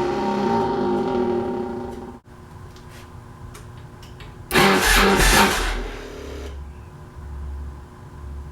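Yamaha Road Star V-twin motorcycle engine being started: a loud run of engine noise that dies away about two seconds in, then a second short loud burst about four and a half seconds in that fades to a low rumble.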